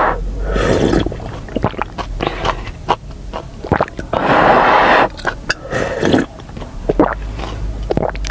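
Close-up eating sounds: slurps of chili-oil broth and noodles, with wet chewing and mouth clicks in between. The longest slurp comes about four seconds in.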